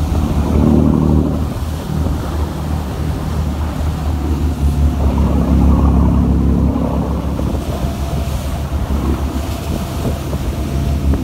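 A boat's engine running steadily under way in rough water, with strong wind buffeting the microphone and waves splashing. The engine's low drone swells twice, about a second in and again around the middle.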